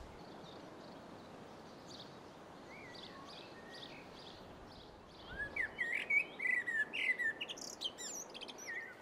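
Songbirds singing: a few faint chirps at first, then, from about halfway through, a lively run of quick, varied whistled notes.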